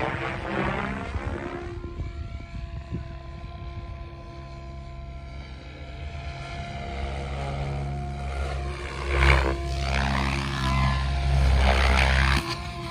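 Electric RC helicopter (SAB Goblin 700 with a Pyro 800 motor on 12S) flying 3D aerobatics: whining rotor and motor tones that fall in pitch as it passes in the first two seconds, then louder, surging rotor noise with sharp peaks from about nine seconds in as it flies low and hard.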